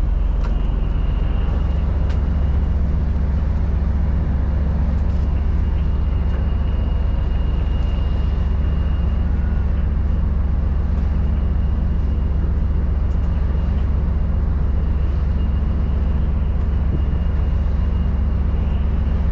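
Steady low drone of a container ship's engine and machinery, with a faint high whine above it that drops out for a while in the middle.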